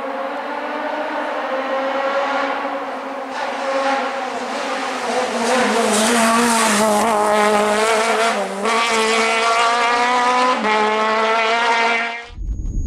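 A rally car's engine driven hard on a special stage, coming closer and getting louder, its pitch climbing and dropping back several times as it revs and shifts. The sound cuts off suddenly near the end.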